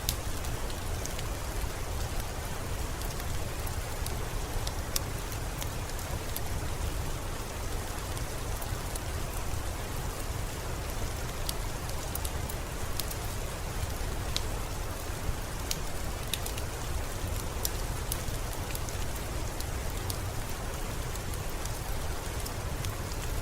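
Steady rain falling, an even hiss with a deep low rumble underneath, with scattered sharp crackles and pops from a wood fire throughout.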